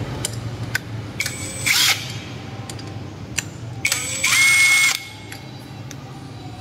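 Electric drill-driver running in two short bursts of about a second each, the second spinning up to a steady whine, with a few light clicks between them.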